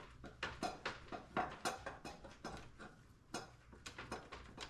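Scattered light metallic clicks and clinks of hand tools working on metal, a few per second at uneven spacing.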